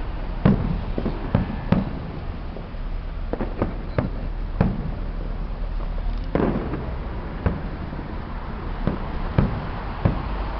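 Fireworks going off: about a dozen sharp bangs at irregular intervals, one followed by a short crackle about six seconds in, over a steady low rumble.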